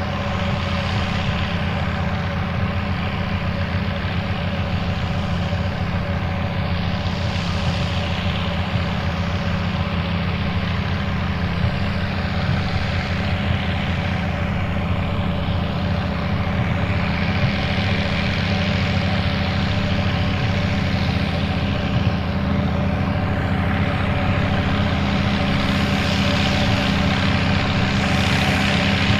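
Fiat 800 tractor's turbocharged four-cylinder diesel running steadily under work. A hiss above it swells and fades every several seconds.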